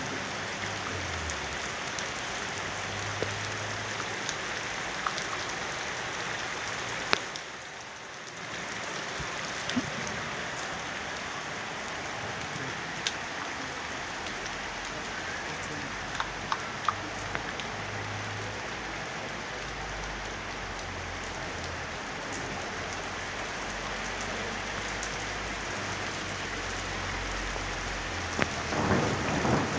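Steady autumn rain falling, with scattered sharper drops striking a surface, and a short dip in intensity about eight seconds in. A low rumble of thunder starts building near the end.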